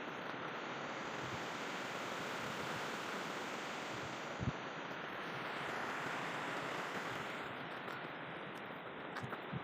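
Steady rushing noise, even and unbroken, with one low thump about halfway through.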